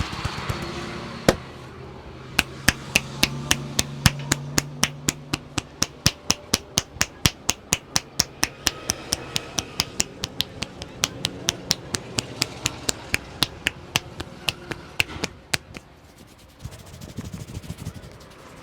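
A barber's massage with rapid percussive strokes: hands striking the head or shoulders, about four to five crisp slaps a second, keeping a steady rhythm. The slapping stops near the end and gives way to softer rubbing sounds.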